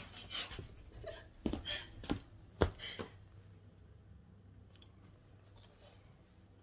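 A lynx point Siamese cat sniffing right at the phone's microphone: about six short, soft snuffs over the first three seconds.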